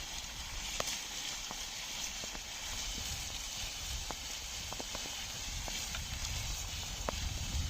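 Bullock team working in a muddy field: irregular light clicks and knocks, a few a second, over a steady outdoor hiss and low rumble.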